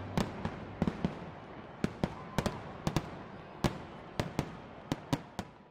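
Fireworks going off: a run of irregularly spaced sharp bangs over a steady crackle, the whole fading away toward the end.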